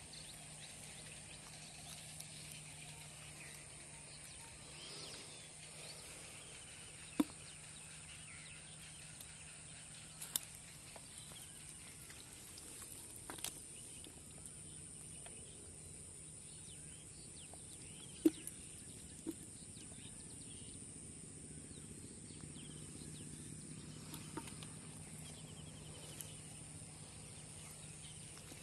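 Rural outdoor ambience: a steady high insect drone and a low hum, faint bird chirps, and about six sharp, isolated clicks or knocks.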